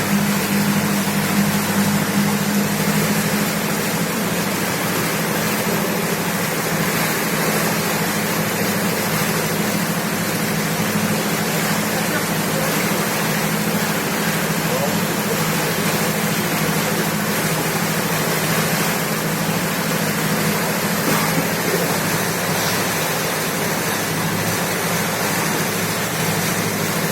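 Steady motor drone under a loud, even rushing noise, unchanging throughout.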